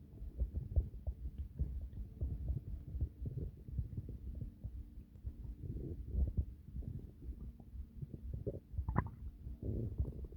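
A person's stomach growling: low, irregular gurgling rumbles, with a brief higher-pitched gurgle near the end.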